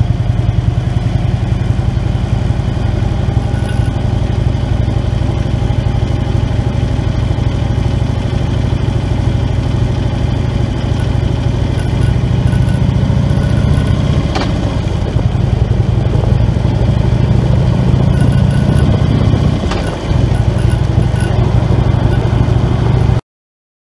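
Harley-Davidson Road King's V-twin engine running steadily while the motorcycle is ridden along a road, dipping briefly about twenty seconds in. The sound cuts off abruptly near the end.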